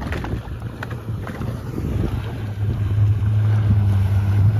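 Jet ski engine droning steadily and growing louder over the second half as another jet ski closes in, with wind buffeting the microphone.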